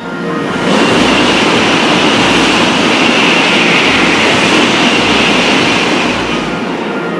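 N700-series Shinkansen passing at high speed: a loud, steady rush of air and rail noise. It builds about a second in and eases off near the end.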